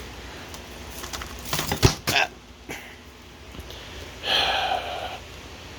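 Plastic movie case and its shrink wrap being handled: crinkling with a quick run of sharp knocks about two seconds in, then a short breathy vocal noise.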